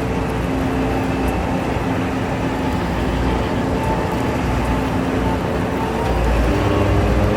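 Preet combine harvester running: a steady engine and machinery drone with several held tones, growing a little louder and heavier near the end.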